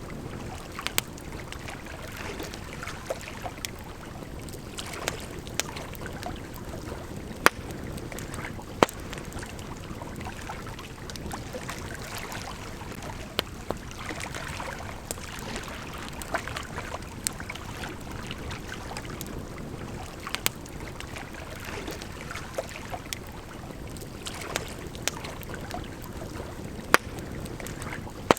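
Wood campfire crackling with irregular sharp pops, a few of them loud, over the steady rush of a gently flowing river.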